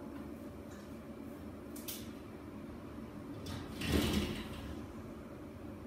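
Handling noises at a wall-mounted glass-fronted display cabinet: a short click about two seconds in, then a louder scraping noise lasting under a second around four seconds in, over a faint steady room hum.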